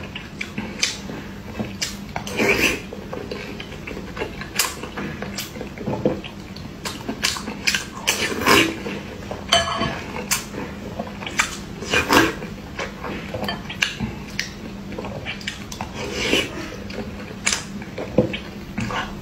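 Metal spoon clinking and scraping against a ceramic bowl as peeled boiled eggs are scooped from broth, mixed with close-miked chewing and mouth sounds in irregular bursts. A faint low hum runs underneath.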